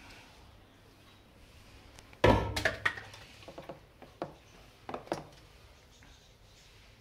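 Steel ladle knocking against a large stainless-steel tray as meat is broken up on it: one loud clank about two seconds in, then a string of lighter knocks and taps over the next three seconds.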